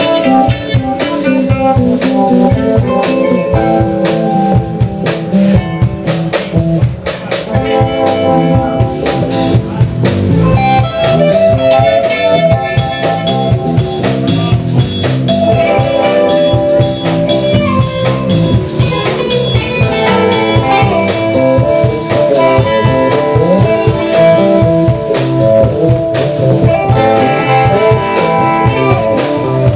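Live blues band playing an instrumental passage without vocals: electric guitars over bass and a drum kit keeping a steady beat.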